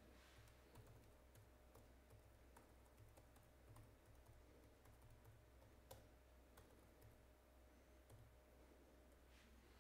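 Near silence with faint, irregular clicking of a computer keyboard being typed on, over a low steady hum.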